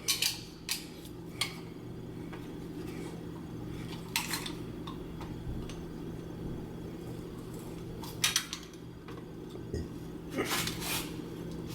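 A hand tool scraping and clicking against underlayment board as a hole is cut out little by little, over a steady low hum. Sharp clicks come now and then, a few close together near the start and near the end.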